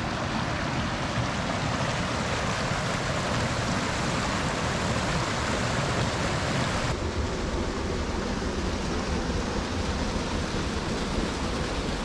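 Creek water rushing steadily in riffles and small cascades over limestone ledges. About seven seconds in, the sound turns duller.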